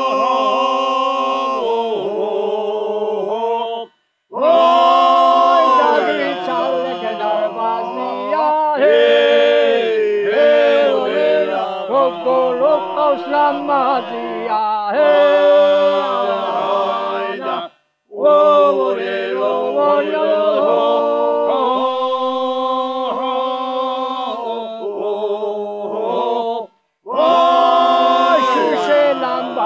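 Georgian folk song sung a cappella by a small group of elderly men in several simultaneous voice parts. The long held phrases break off in brief pauses about 4, 18 and 27 seconds in.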